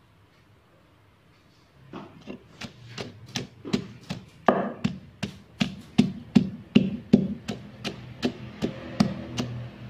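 Wooden pestle pounding salt, garlic and chillies in a wooden mortar: after about two seconds of quiet, a steady run of dull knocks, about three a second.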